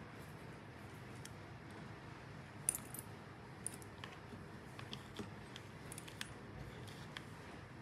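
Small metal calibrator fixture parts clinking and clicking as they are handled and set into a plastic case, with one sharper click about two and a half seconds in and then scattered light ticks.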